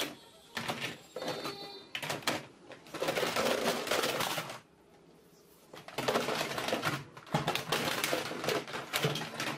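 Hard plastic toy guns clattering and knocking against each other as they are pulled out of a plastic storage box and dropped onto a pile. The clatter goes in bursts, with a short lull a little past the middle.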